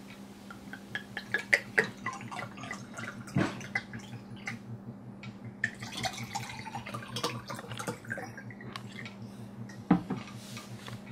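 Liquid poured from a glass bottle into drinking glasses, glugging and splashing irregularly, with a few sharp knocks of glass, the loudest near the end, over a steady low hum.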